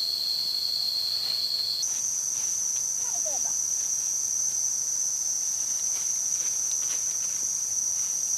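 Insects droning in a steady high-pitched buzz, which jumps to a higher pitch about two seconds in. Faint rustling of dry leaf litter underfoot sounds now and then.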